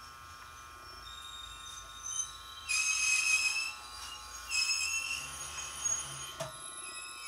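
205 series electric train braking to a stop, its brakes squealing in two loud high-pitched bursts over a low rumble, then a single clunk as it comes to rest.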